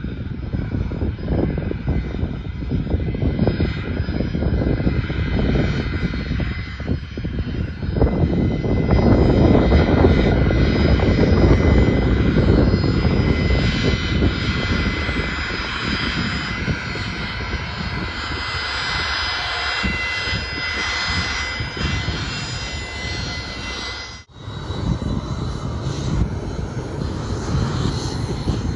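Jet airliner's engines running as it moves along the runway: a deep rumble under a steady high whine. The rumble swells about eight seconds in and eases off later, with a brief gap about 24 seconds in.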